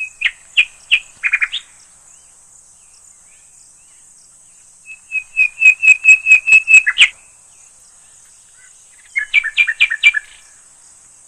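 A bird singing in three bursts of rapid repeated notes, the middle burst the longest and loudest, over a steady high insect buzz.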